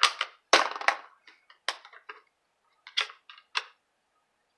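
Hard plastic clicks and clacks as clear acrylic stamp blocks and hinged ink pad cases are handled and set down on a table: a quick cluster in the first second, then single knocks spaced about a second apart.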